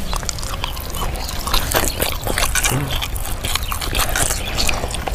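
Wet chewing, sucking and lip-smacking of a person eating fried fish off the bone with his mouth and fingers, full of small, quick clicks and smacks. A brief low hum comes a little past halfway.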